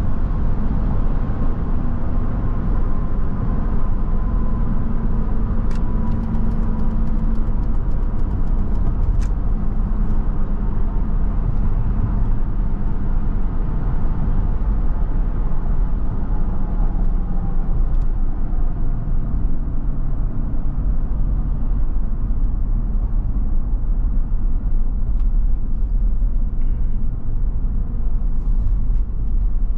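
Steady low engine and road rumble of a truck driving, with a faint engine hum that drifts slowly lower. A short run of rapid light clicks comes about six seconds in.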